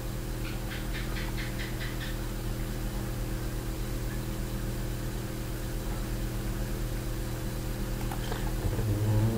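Steady electrical hum: a low drone made of several even, unchanging tones, typical of mains hum picked up by the recording setup. A short run of faint, quick ticks sounds from about half a second to two seconds in.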